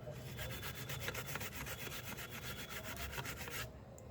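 Rapid, evenly repeated scrubbing strokes: the USB port on an HP G4 laptop board being scrubbed clean, because moisture may be shorting one of its pins. The scrubbing stops about three and a half seconds in.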